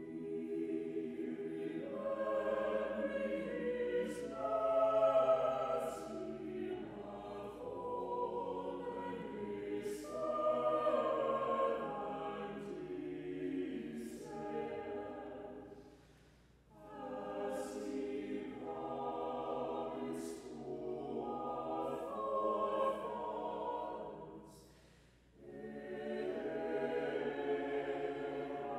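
Small mixed choir of about nine voices singing unaccompanied, in long sung phrases with two short breaks for breath, about 16 and 25 seconds in.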